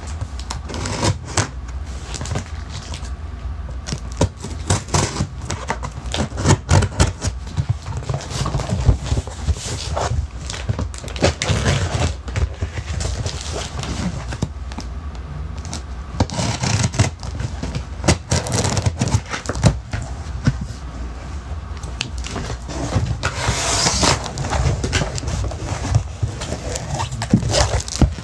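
Scissors cutting through packing tape along the seams of a cardboard box, with irregular snips, scrapes and rustles of tape and cardboard; near the end the box flaps are pulled open.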